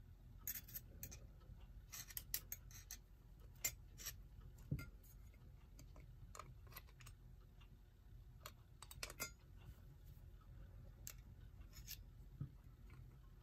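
Faint, scattered light clicks and taps of small metal clock-movement parts being handled: the freshly lifted plate and its little washers.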